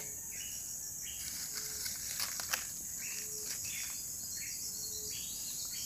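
Steady high-pitched chorus of insects, with a faint short low note repeating about every second and a half.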